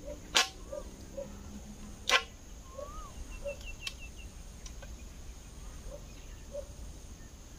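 A machete chopping a length of green bamboo: two sharp strikes, about half a second in and again about two seconds in.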